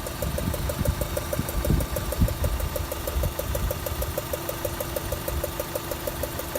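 Rover 75 1.8-litre four-cylinder petrol engine idling with a steady, rapid ticking, about six or seven ticks a second, like hydraulic lifter tick. The cause is a loosely screwed-in spark plug in the second cylinder, letting combustion gases blow past into the plug well. A few low thumps come in the first two seconds or so.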